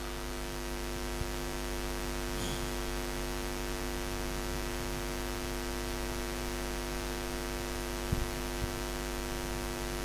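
Steady electrical mains hum from the microphone and sound system, a buzzing hum that holds unchanged, with a few faint clicks about eight seconds in.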